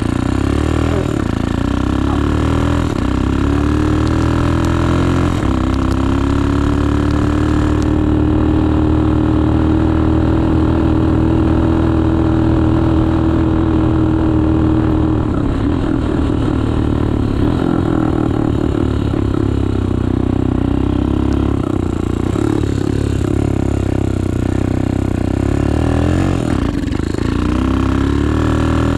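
Dirt bike engine running as the bike is ridden, its pitch rising and falling with the throttle, held steady for several seconds in the middle.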